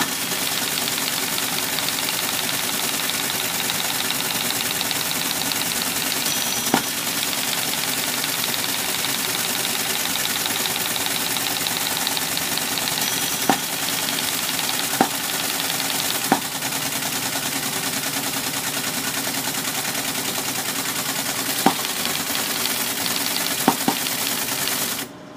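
Teletype Model 33 ASR running, its paper-tape punch punching out an assembled program tape with a steady, fast mechanical chatter and several sharper clacks along the way. It stops abruptly near the end.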